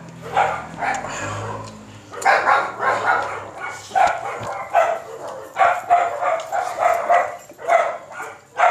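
A dog barking over and over, a dozen or so short barks with a brief lull about a second in.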